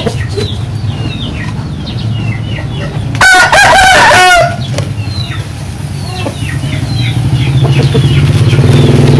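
A rooster crows once, starting about three seconds in, a loud call lasting a little over a second. Short high chirping calls repeat throughout, and a low steady hum grows louder near the end.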